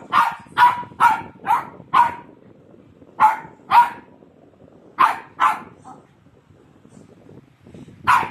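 Shih Tzu puppy barking in short bursts: five quick barks, then two, then three around five seconds in, and one more near the end, with quiet gaps between.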